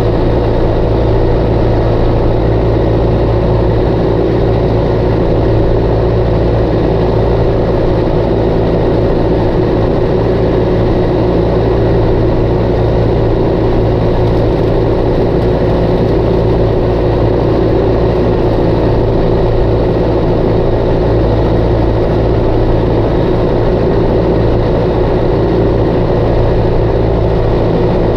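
Four-cylinder turbo-diesel engine of a John Deere tractor running steadily under load as it pulls a cultivator through the field, a constant drone at an even pitch with no change in revs.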